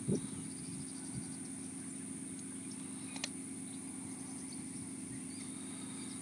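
Outdoor ambience by a pond: a steady low hum and a steady high thin whine, with faint bird chirps between one and two seconds in. One sharp click comes a little over three seconds in.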